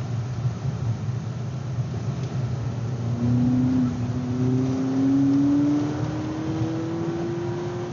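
Volkswagen Polo GTI's turbocharged four-cylinder engine heard from inside the cabin, accelerating hard, over steady tyre and road noise. From about three seconds in, the engine note climbs steadily as the car pulls through a gear.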